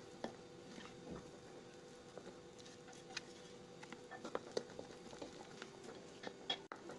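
Silicone spatula stirring flour into thick, wet cake batter in a glass bowl: faint squishing with soft scattered clicks of the spatula against the glass, more frequent in the second half.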